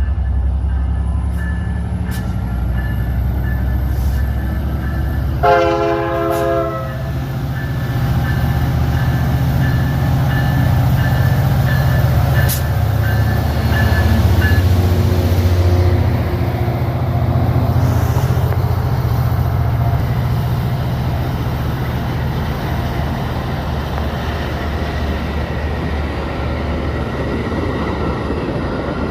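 Metra F59PHI diesel locomotive running with a heavy low rumble as the train moves, with one short blast of its chord horn about five seconds in. A faint, repeating high ringing goes on through the first half and stops about halfway.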